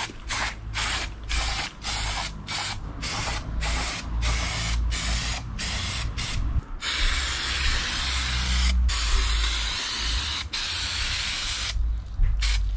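Aerosol can of spray adhesive hissing in short quick squirts, about two or three a second. Then it gives one long continuous spray lasting several seconds with a brief break, and stops shortly before the end.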